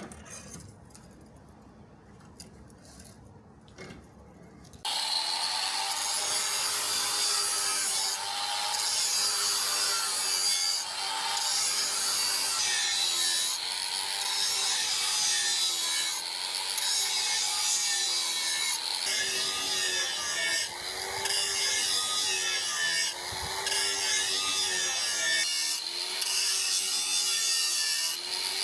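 A hand tool worked back and forth against a workpiece, sawing or filing, with one stroke about every second and a third. It starts suddenly about five seconds in, after a quiet stretch.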